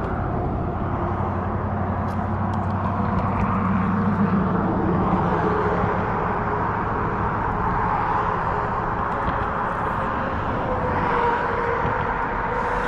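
An engine running steadily, its pitch drifting slightly, over a constant rushing background noise.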